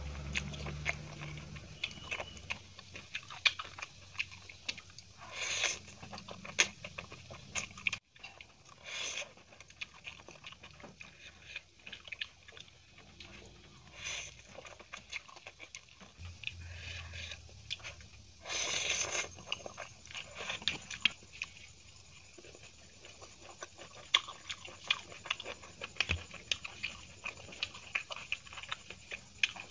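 Close-miked eating of Maggi instant noodles: wet chewing and slurping as forkfuls of noodles are drawn into the mouth. Many sharp clicks throughout, and a few longer noisy bursts, one about five seconds in and one just past halfway.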